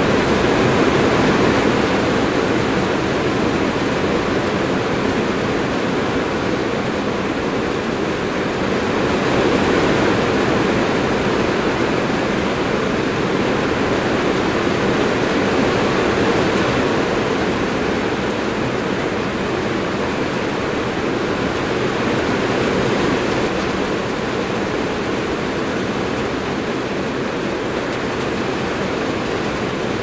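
Strong rain falling on a metal roof, heard from beneath it: a loud, dense, steady hiss of drops that swells slightly about ten seconds in.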